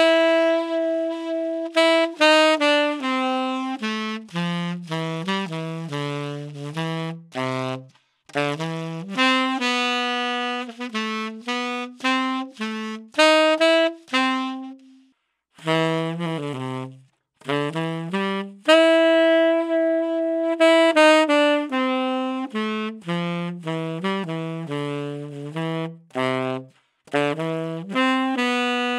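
Solo tenor saxophone playing a jazz melody in phrases, with a few long held notes and short breaths between, recorded through an Electro-Voice RE320 dynamic microphone. Near the end, after a brief break, the playing continues through an Electro-Voice RE20 dynamic microphone.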